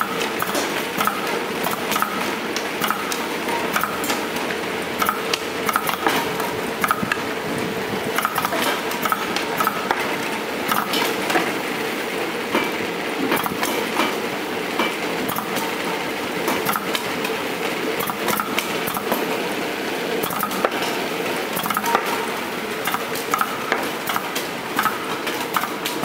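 Heidirose HD S01 CD/DVD sorting machine running: a steady motor hum under irregular clicks and clatter from its belts, rollers and the plastic discs passing through, with a light note repeating about every two-thirds of a second.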